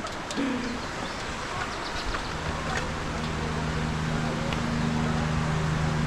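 A motor running with a steady low hum that sets in about two seconds in, over a noisy background.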